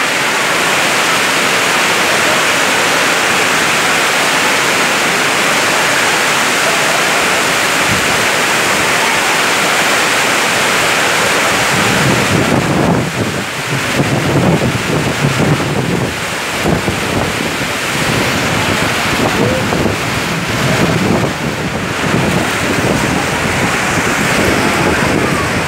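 Torrential rain pouring down in a windy storm, a dense steady hiss. About halfway through, strong gusts start buffeting the microphone, adding uneven low blasts of wind noise.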